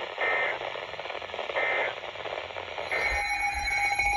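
Three short bursts of EAS end-of-message data tones, each about a third of a second long and about 1.4 s apart, over weather-radio static. They mark the close of the alert broadcast. A steady tone starts just after the last burst.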